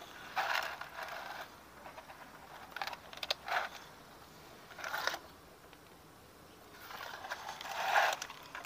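Hand work on a Honda Vario scooter's final-drive gearbox parts during greasing and reassembly: several short bouts of scraping and rustling, the longest near the end.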